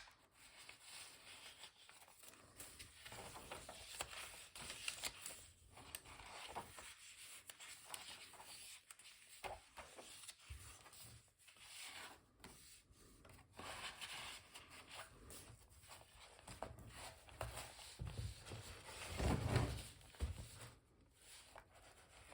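Paper pages of a handmade junk journal rustling and rubbing as they are handled and turned, with small ticks of paper. There is a louder low bump about three-quarters of the way through.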